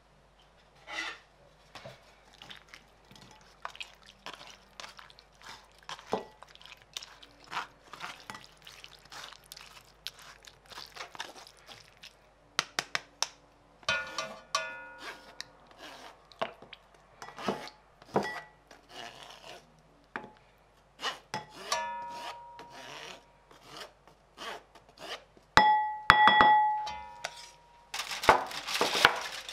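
Kitchenware being handled: many small taps and knocks of utensils, with a few short ringing clinks of dishes or pans, the loudest about three-quarters of the way through.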